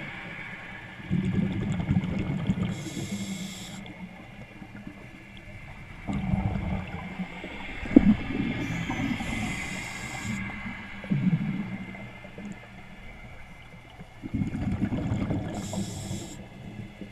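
Scuba diver breathing through a regulator underwater: three short hissing inhalations and, between them, rumbling bursts of exhaled bubbles.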